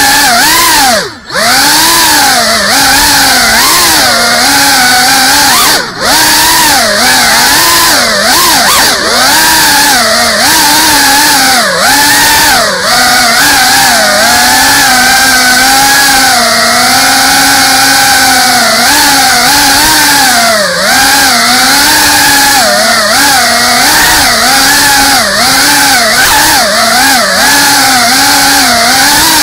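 FPV quadcopter's brushless motors and propellers buzzing up close on the drone's own camera, the pitch rising and falling constantly with the throttle. The sound briefly drops away about a second in and again around six seconds.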